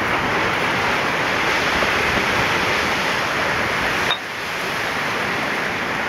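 Heavy ocean surf breaking and churning against the foot of a sea cliff: a steady rush of white water that drops off abruptly about four seconds in, then slowly builds again.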